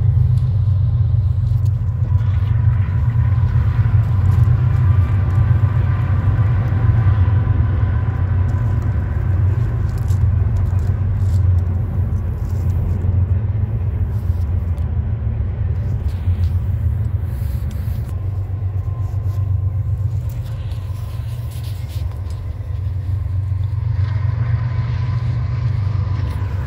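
Steady low vehicle rumble, easing off a little past the middle and building again near the end.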